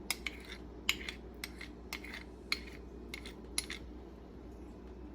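Utensils clinking and scraping against a bowl as honey is worked out of a measuring cup into the sauce: about a dozen light, irregular clinks, stopping a little after three and a half seconds.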